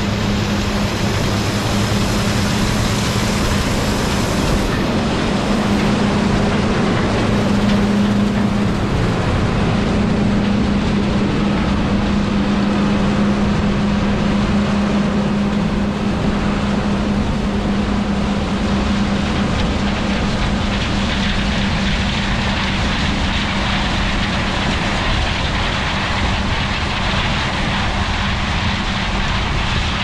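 Large diesel harvest machinery running steadily: a constant engine drone with a strong low hum under a wide mechanical rush.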